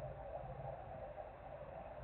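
Steady drone of industrial machinery, a continuous mid-pitched hum over a low rumble that swells and eases.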